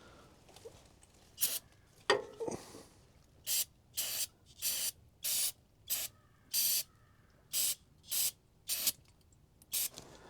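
Aerosol can, most likely carburettor cleaner, fired in about ten short hissing sprays roughly half a second apart while cleaning the small engine's dirty carburettor float bowl.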